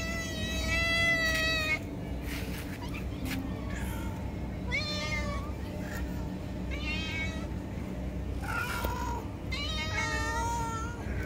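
Stray cats meowing for food, five separate meows: a long drawn-out one at the start, then shorter, higher calls spaced a couple of seconds apart.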